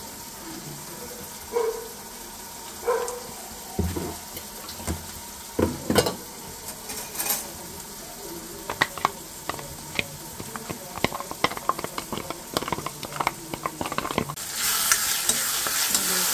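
Ground spices being mixed with water into a paste in a small clear bowl: scattered light clicks and taps against the bowl, growing more frequent in the second half. Near the end a steady sizzle takes over as onion-tomato masala fries in an iron kadai.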